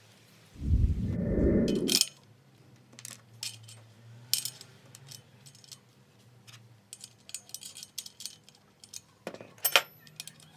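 A brief loud low rumble near the start, then scattered light metallic clinks and taps of small metal parts being handled, with a sharper clink near the end.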